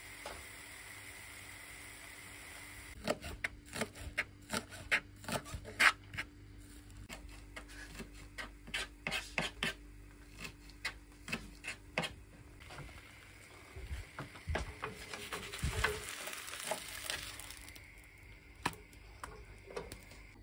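Kitchen knife chopping green onions on a plastic cutting board: sharp, irregular knocks about two a second, giving way to denser scraping and tapping that stops a few seconds before the end.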